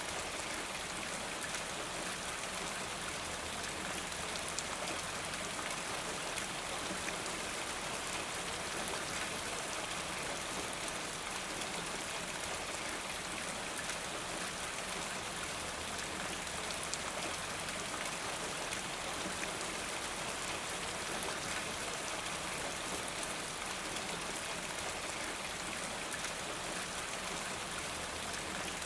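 Steady rain falling, an even, continuous hiss of drops without a break.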